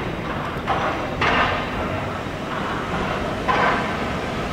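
Fukui Railway tram running along street track, a steady rumble with short swells of rail noise about a second in and again near the end.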